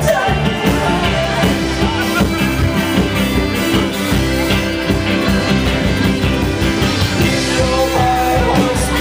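Live band music with fiddle, piano accordion, upright bass and a drum struck with sticks, driven by a steady beat.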